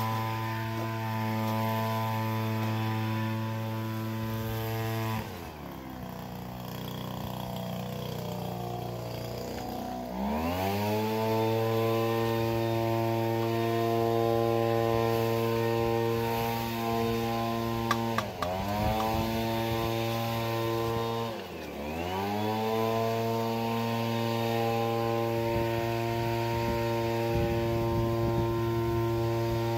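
A motor running with a steady, many-toned hum; its pitch sinks about five seconds in, climbs back some five seconds later, then dips and recovers twice more in quick succession. A few sharp knocks come with the first of those later dips.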